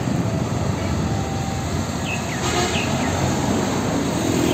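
Isuzu FTR car-carrier truck's diesel engine rumbling steadily with tyre and traffic noise as it drives past close by on a busy road. A few faint high chirps come about two seconds in.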